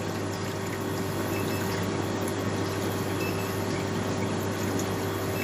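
Cube ice machine running in its freeze cycle: water circulating and splashing over the evaporator grid, over a steady motor hum. The evaporator is below freezing and ice is forming, a sign that the refrigeration side is working normally.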